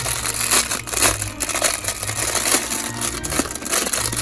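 Clear plastic bags of toy plastic screws crinkling as they are squeezed and turned in the hands, a dense run of crackles.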